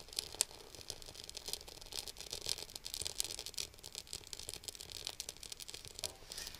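A newly lit kindling fire crackling in a wood-burning stove's firebox, with many small irregular pops and clicks as the wood catches, and the light clatter of sticks being set in by hand.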